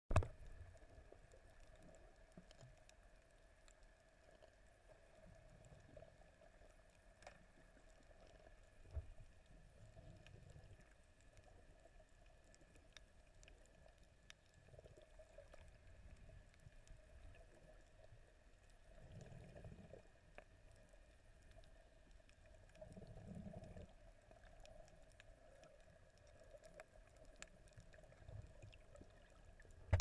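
Faint, muffled underwater sound from a camera filming beneath the surface: low swells of water movement every few seconds, a few scattered clicks and a faint steady hum.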